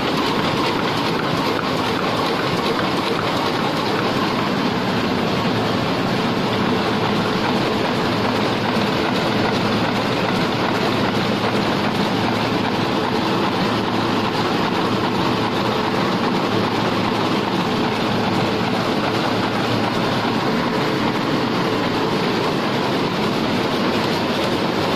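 Heidelberg SORMZ two-colour offset printing press running at production speed: a steady, even mechanical running noise from its rollers and sheet feed.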